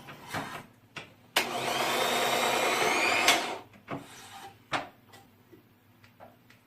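Electric motor of an automatic tornado-potato spiral cutter running for about two seconds, its whine rising in pitch as it spins up and then holding steady before it stops. Clicks and knocks from the machine come before and after.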